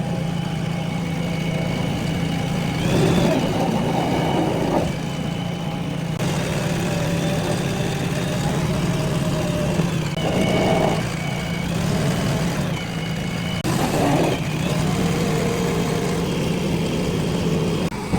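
JCB 3DX backhoe loader's diesel engine running steadily with a deep hum and a higher whine above it. The engine swells louder three times, about three seconds in, around ten seconds and around fourteen seconds, as it takes load while working soil.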